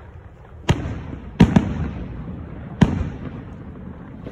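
Aerial fireworks bursting: four sharp booms, the first about a second in, two close together near the middle and the last near three seconds, each followed by a low rolling echo.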